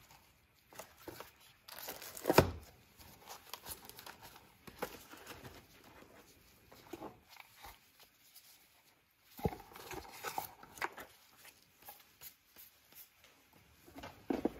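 Handling noise of a phone unboxing: plastic wrap crinkling and cardboard box parts rustling and being moved. A sharp knock sounds about two seconds in and another near ten seconds.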